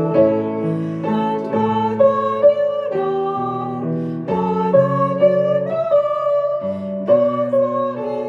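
A slow song played on piano, with a female voice singing. Sustained notes and chords change about once a second.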